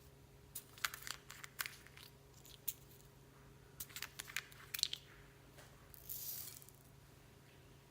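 Clear slime mixed with beads and floam being squished and worked by hand: scattered crackles and pops in two clusters, then a brief soft hiss about six seconds in.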